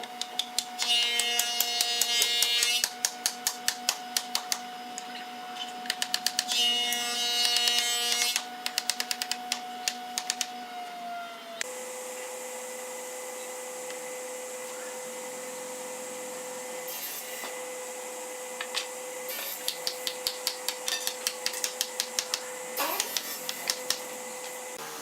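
A woodworking power tool's motor running with a steady whine, broken by bursts of rapid sharp clicking. About halfway through, the whine drops suddenly to a lower steady pitch.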